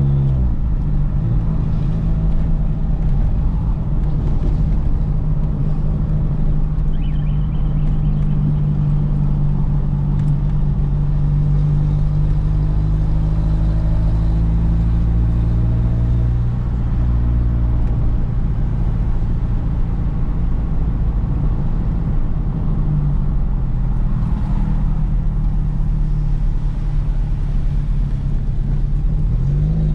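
Chevrolet Vectra's engine heard from inside the cabin while driving, a steady low drone. The revs drop briefly just after the start and climb again near the end.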